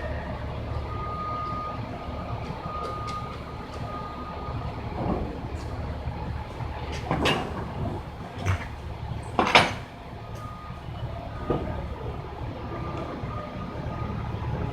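Yard truck's engine running steadily, with a reversing alarm beeping faintly in the first few seconds and again near the end. Three short, sharp noises come in the middle, the loudest about nine and a half seconds in.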